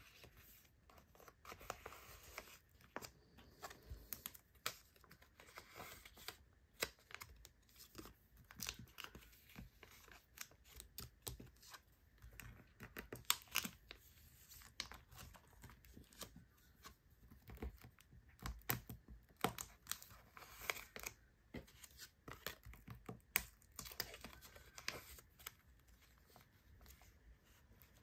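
Thin clear plastic binder pocket sleeves crinkling and rustling, with scattered small clicks, as photocards are slid into the pockets.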